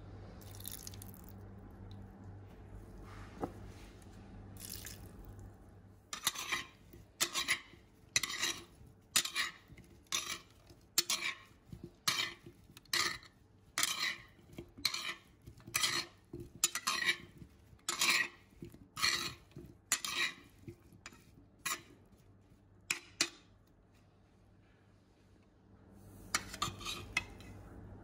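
Metal spoons tossing a cucumber and tomato salad in a ceramic bowl, scraping and clinking against the bowl in a steady rhythm of strokes. The tossing starts several seconds in and stops a few seconds before the end, with a brief burst again near the end.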